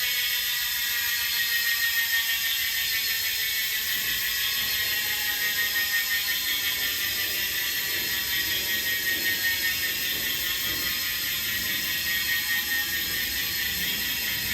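Rear-wheel freehub of a Canyon Aeroad road bike ratcheting as the wheel coasts, a rapid buzz of clicks whose pitch slowly falls as the wheel slows.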